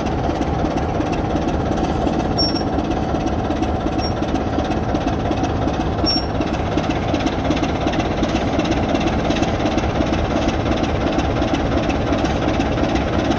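Diesel locomotive engine running steadily, a loud, even clattering rumble.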